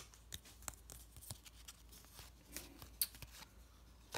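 Faint handling of a stack of trading cards in the hand: soft scattered clicks and slides of card edges, a few ticks a second apart.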